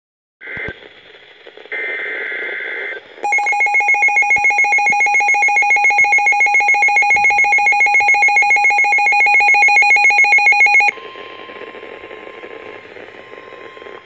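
NOAA Weather Radio emergency alert on a Midland weather radio: a couple of short buzzy data bursts, then the radio's own loud, rapidly pulsing electronic alarm for about eight seconds for a severe thunderstorm warning. The alarm stops abruptly and the broadcast's steady warning tone continues over static.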